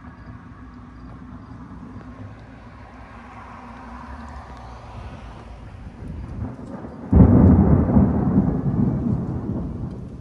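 Thunder: a low rumble, then a sudden loud thunderclap about seven seconds in that rolls and fades over the following few seconds.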